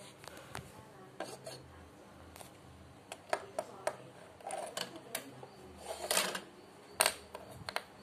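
Plastic Lego bricks and small plastic pieces being handled and set down on a wooden table: irregular sharp clicks and knocks.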